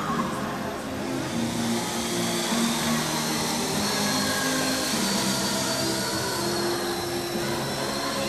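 Quadcopter's four electric motors and propellers spooling up about a second in, then a steady whirring hum with a high whine as the multirotor lifts off the floor and hovers.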